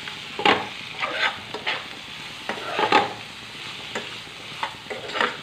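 A spatula stirring and scraping chopped raw mango, tomato, onion and green chillies around a frying pan. It makes irregular scrapes over the steady sizzle of the frying.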